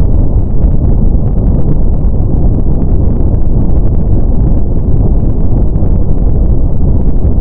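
Brown noise: a steady, loud, deep rushing hiss with most of its energy low, below about 1 kHz.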